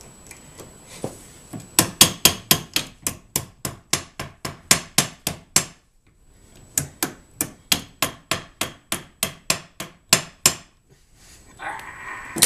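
Hammer striking the hub of a Garden Way cart wheel in quick sharp blows, about four a second, in two runs of about four seconds each with a short pause between. The blows are knocking the wheel off its axle.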